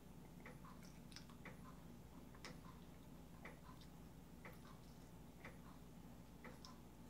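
Faint ticking of a clock, about one tick a second, with softer ticks in between, in an otherwise near-silent room.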